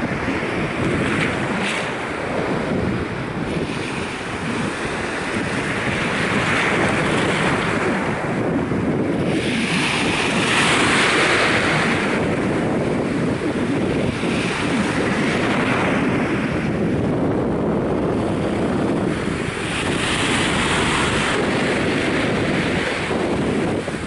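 Small waves lapping and washing over a sandy shoreline in shallow water, the hiss swelling with each wash every few seconds and strongest about ten seconds in. Wind buffets the microphone with a low rumble underneath.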